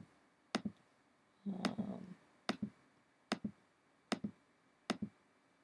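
A row of single sharp computer clicks, about six, roughly one every 0.8 seconds, as items are selected on screen one after another. A short soft murmur of voice comes about one and a half seconds in.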